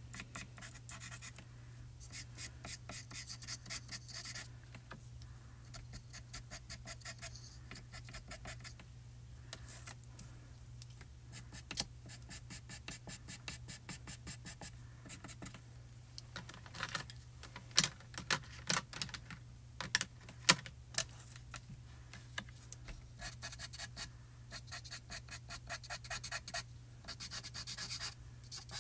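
Pencil scratching on textured pastel paper in quick, rapid back-and-forth strokes, coming in runs of a few seconds, as short grass blades are drawn in. A couple of sharper taps come about two-thirds of the way through.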